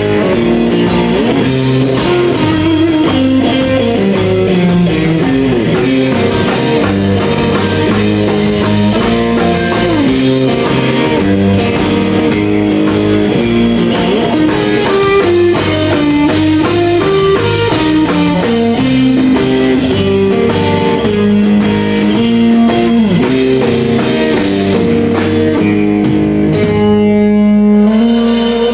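Live rock band: a Stratocaster-style electric guitar plays a lead line with bent notes over a drum kit. Near the end the drums drop out and a held guitar note rings on with a wavering quiver.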